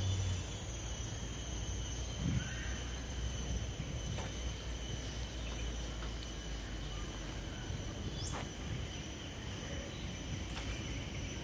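Steady high-pitched insect chorus that sounds in several high tones at once, over a constant low rumble. There are a few faint ticks, and a brief rising chirp about eight seconds in.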